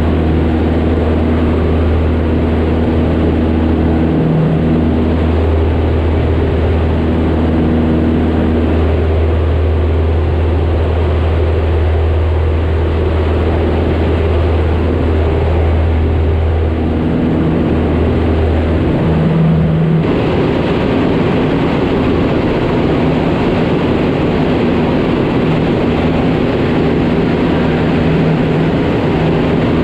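Cessna 152's four-cylinder Lycoming engine and propeller droning steadily in flight, heard from inside the cockpit. About two-thirds of the way through the deep steady hum drops away abruptly and a rougher, hissier drone carries on.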